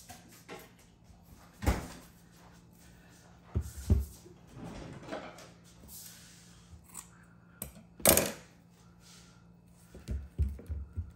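Kitchen handling sounds: a few scattered knocks and thumps as things are picked up and set down, the loudest about eight seconds in, then a quick run of taps near the end.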